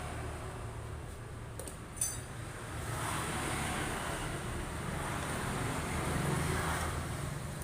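Vertical pellet mill running steadily under load with a low hum, with a sharp metallic clink about two seconds in; the machine grows louder in the second half.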